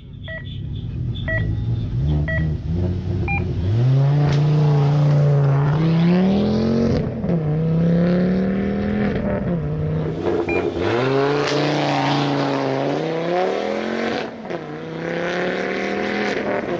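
Four short electronic start beeps about a second apart, the last one higher. Then a Ford Focus ST's 2.5-litre turbocharged five-cylinder launches hard and accelerates, its revs climbing and dropping back several times.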